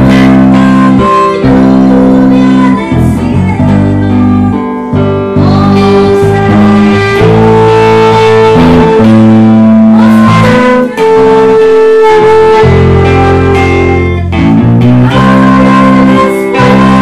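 Music led by guitar over a bass line, with the chords changing every second or two.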